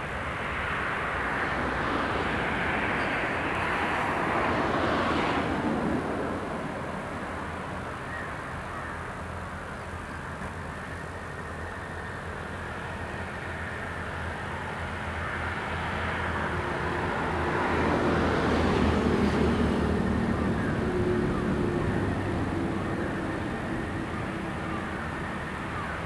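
Distant engine noise, like passing traffic or an aircraft, that swells and fades twice: once a few seconds in and again about two-thirds of the way through, with a faint steady drone during the second rise.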